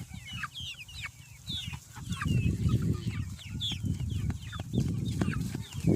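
A flock of chickens clucking and cheeping, many short calls overlapping. A louder low noise joins about two seconds in.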